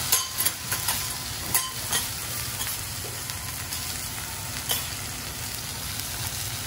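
Hiroshima-style okonomiyaki, noodles and cabbage frying on a hot teppan griddle with a steady sizzle, while metal spatulas clack and scrape against the steel plate, most often in the first two seconds.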